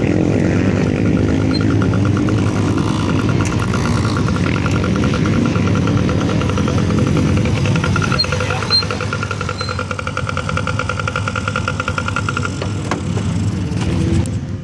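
Small 50cc mini dirt bike engine running steadily, its rapid firing rhythm heard throughout.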